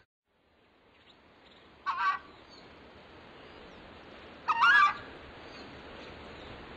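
Southern screamer (chajá) giving two loud calls about two and a half seconds apart, the second a little longer, over a faint steady background.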